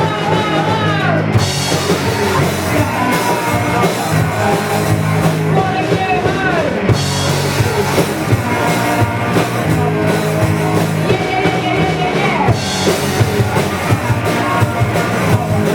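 A live rock band playing a punk-style song, with a singing voice over the drum kit and the other instruments.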